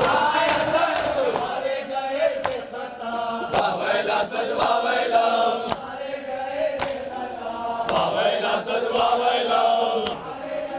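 Men chanting a Shia mourning lament (nauha) together, with sharp chest-beating strikes of sina zani roughly once a second.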